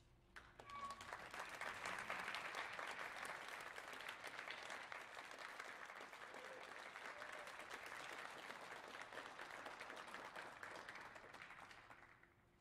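Audience applauding after a school band piece, starting about half a second in and tapering off near the end.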